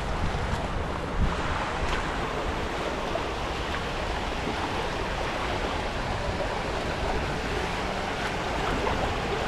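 Steady rush of shallow river water flowing around a concrete pillar, with a brief bump about a second in.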